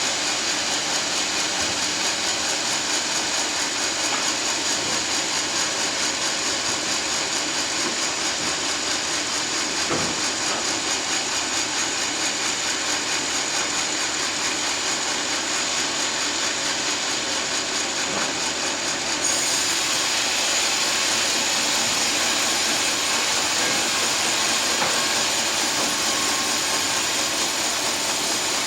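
Sawmill saw running steadily as it cuts through a teak log. The sound turns slightly louder and brighter about 19 seconds in.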